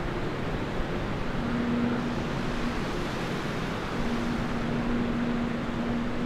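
Shallow surf washing over a sand beach, a steady rushing noise. Over it run long, low held tones, one note giving way to a lower one about a second in.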